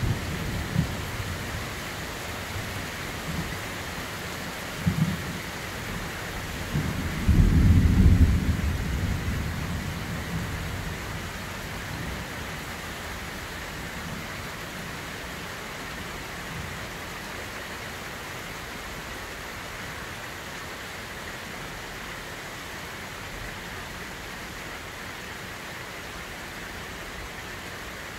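Heavy rain falling steadily, with a deep thunderclap about seven seconds in that rumbles and fades over several seconds. Two shorter, sharper cracks come before it, about one and five seconds in.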